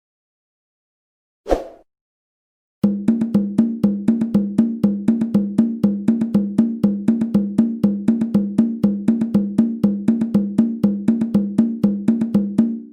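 Conga drum struck by hand: one stroke about a second and a half in, then a fast, even run of strokes, about four or five a second, lasting around ten seconds.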